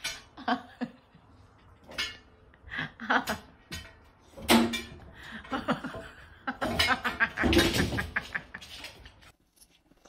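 A person laughing in short, irregular bursts, with a louder, noisier stretch of laughter about two-thirds of the way through.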